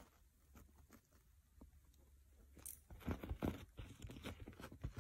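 A small dog chewing and gnawing on something held between its front paws: faint crunching and clicking that starts about three seconds in.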